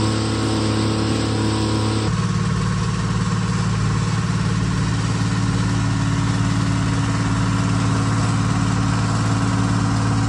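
Timberjack 230 skidder's Detroit diesel engine running steadily, heard from the operator's seat. About two seconds in the sound changes abruptly at a cut and then runs on steady.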